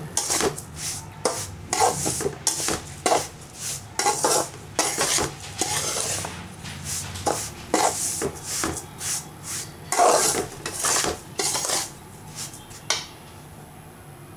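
A spatula stirring and scraping a crumbly mixture of grated beetroot, ragi flour and rava around a pan while it is roasted, in quick strokes about two a second. The stirring stops about twelve seconds in.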